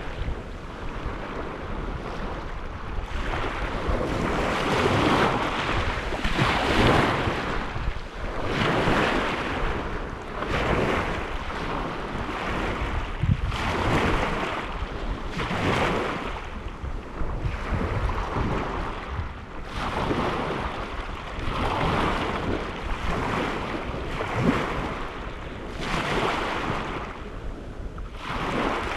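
Small lake waves washing onto the shore, one surge every two seconds or so.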